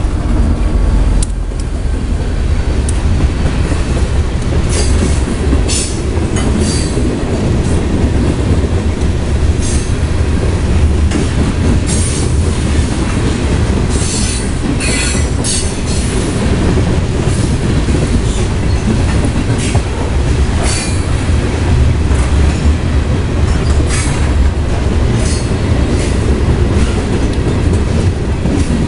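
Freight train passing close by at speed: the last locomotive goes by in the first second or so, then a long string of hopper cars with a heavy, steady rumble of steel wheels on rail. Scattered sharp clicks and squeals from the wheels and rail joints cut through the rumble.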